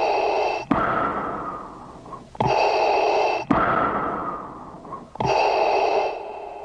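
Darth Vader's mechanical respirator breathing: three slow breaths, each in-and-out pair starting abruptly with a steady hiss and followed by a longer hiss that fades away.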